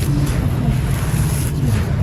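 Dry red dirt and stone lumps being crushed and crumbled, a continuous rough crunching and crumbling over a heavy low rumble.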